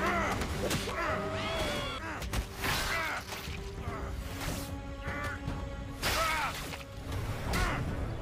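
Cartoon characters grunting and yelling through a struggle, in short strained cries, over a dramatic music score, with a few sharp hits.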